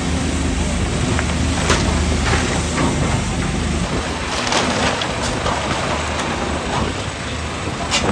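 Heavy excavator's diesel engine running steadily under load, with scattered cracking and crunching of concrete and debris being broken during demolition.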